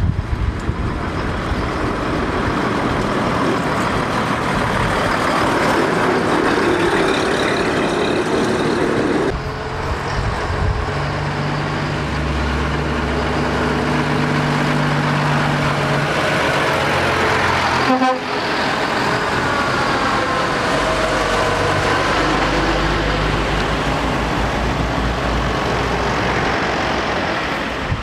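Heavy diesel lorry engines working up a hill as the lorries pass close by in turn. In the middle a low engine note holds steady for several seconds, and a single sharp knock comes about two-thirds of the way through.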